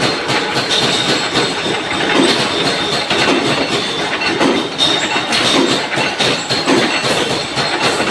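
Loud, continuous mechanical clatter with rapid irregular metallic knocks and clicks, typical of heavy machinery running on a factory floor.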